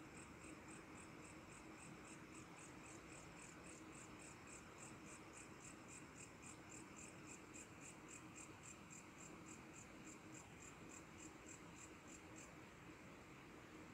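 Faint insect chirping, an even pulse about four times a second, stopping about twelve seconds in, over a low hiss and a faint steady hum.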